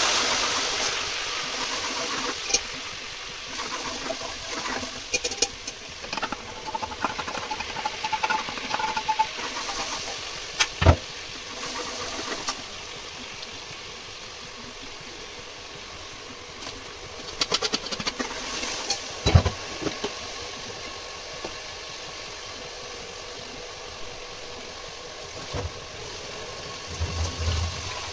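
Food sizzling in the hot pot of a pressure cooker, loudest at the start and then settling to a steady hiss. A metal ladle scrapes, clinks and knocks against the pot now and then, with a few sharp knocks.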